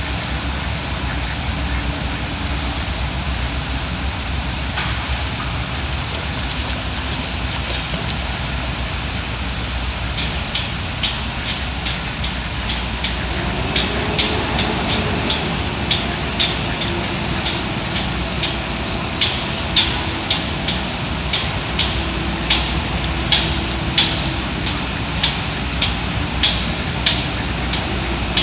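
Canada geese dabbling and stirring the bottom in shallow water: a steady wash of water noise, with short sharp splashes starting about halfway through and coming about once or twice a second towards the end.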